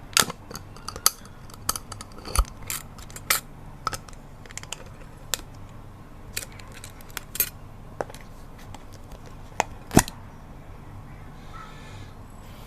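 A honey jar being handled, making irregular sharp taps and clicks: thick at first, then sparser, with the loudest click about ten seconds in. A steady low hum runs underneath.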